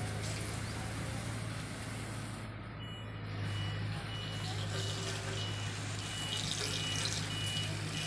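Diesel engine of an asphalt paver running steadily. About three seconds in, a reversing alarm starts beeping, roughly one and a half high beeps a second.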